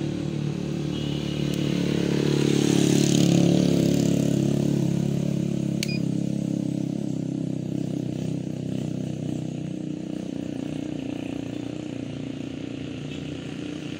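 A motor vehicle engine running close by, growing louder to a peak about three seconds in and then slowly fading away. There is one sharp click near the middle.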